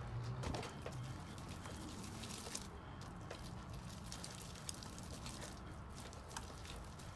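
Slime being squished and pressed on a tabletop, giving scattered small sticky pops and crackles.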